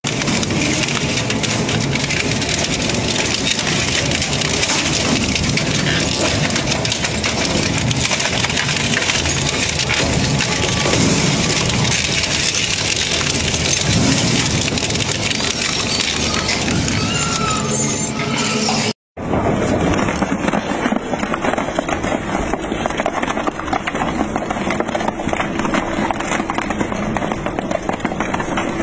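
Industrial twin-shaft shredder tearing up a steel bicycle: dense, continuous crunching and cracking of metal. The sound drops out for an instant about two-thirds through, then a shredder's toothed shaft goes on chewing a large plastic car body panel with the same steady crunching and rattling.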